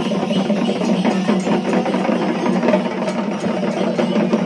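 A troupe of shoulder-slung drums struck with sticks, playing a fast, continuous rhythm together.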